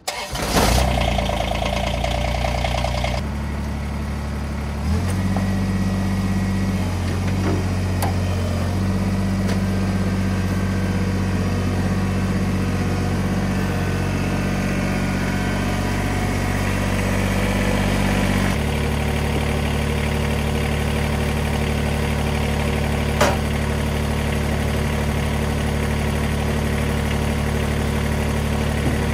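Kubota BX23S tractor's three-cylinder diesel engine running steadily. Its note shifts a few seconds in and again past the middle as the engine speed changes. One sharp knock comes near the end.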